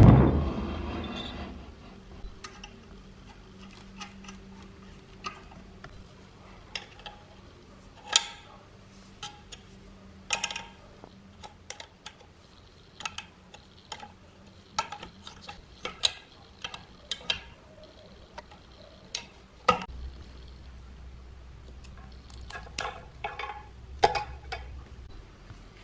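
Scattered metal clinks, taps and clicks of small parts and tools being handled, opening with a loud knock that rings away over about a second.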